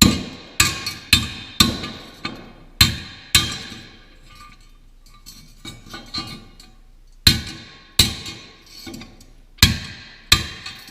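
Hammer blows on steel plow parts, sharp ringing strikes at about two a second, then a pause of about three seconds, then a few more blows.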